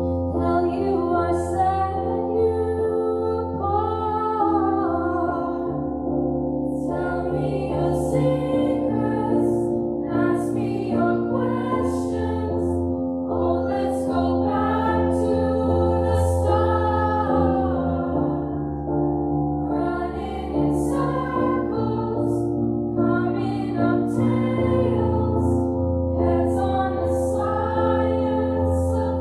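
School choir singing together over instrumental accompaniment, in sung phrases of a few seconds each, above sustained low chords that change every few seconds.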